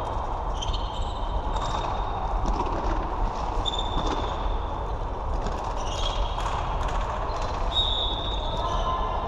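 Floorball play: plastic sticks and ball clacking in many sharp knocks, and shoes squeaking briefly on a sports-hall floor.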